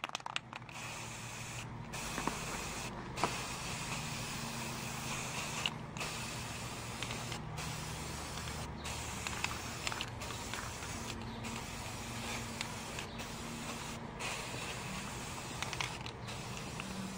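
Aerosol can of flat black spray paint spraying, a steady hiss.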